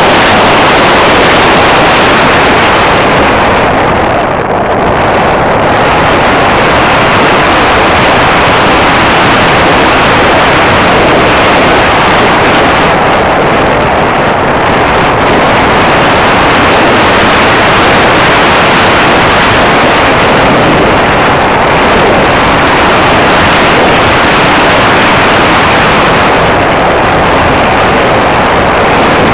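Loud, steady rush of airflow and engine noise on a camera riding on an aircraft in flight, easing briefly twice as the plane manoeuvres.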